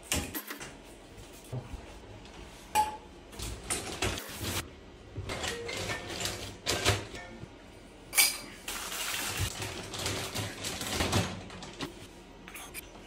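Metal clinks, knocks and short scrapes of a chrome bathtub mixer faucet and its fittings being handled and taken off the wall connections. Irregular, with sharper knocks about three and eight seconds in.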